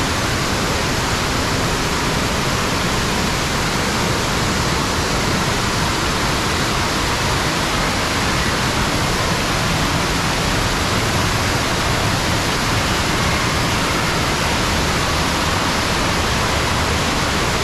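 Waterfall pouring into a narrow rock gorge close by: a steady, even rush of falling water.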